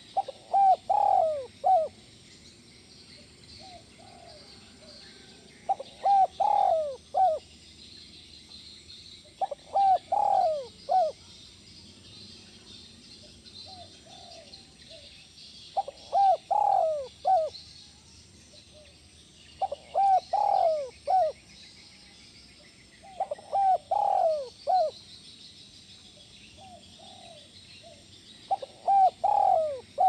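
Spotted dove (tekukur) cooing: seven phrases, one about every four seconds, each a few rising-and-falling notes.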